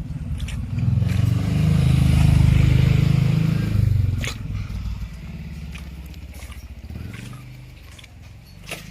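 A small engine running close by, swelling about a second in and fading away after about four seconds, with scattered clicks.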